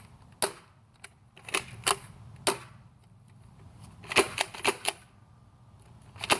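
Magnum Super Drum Blaster, a toy foam-dart blaster, being primed and fired: a string of sharp plastic clacks, with a quick cluster of four about four seconds in.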